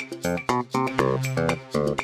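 Instrumental music: a quick, even run of plucked guitar notes over a bass line, about four notes a second.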